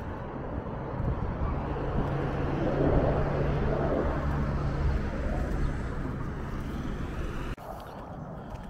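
F-16 fighter jet's engine roaring past in a display flight, swelling to its loudest about three seconds in and then easing off. The sound cuts off suddenly near the end.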